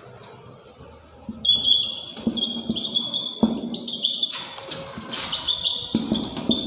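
Marker squeaking on a whiteboard while words are written. The squeaks are short and high-pitched, in a run of stroke-length pieces starting about a second and a half in, with softer scratching of the tip between them.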